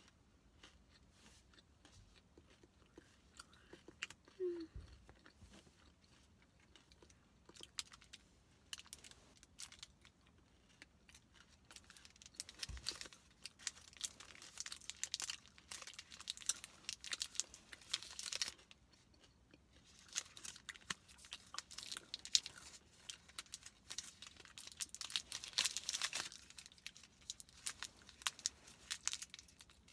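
Foil candy wrapper crinkling and tearing as a chocolate is peeled open, in crackly bursts through the second half, with quieter chewing before.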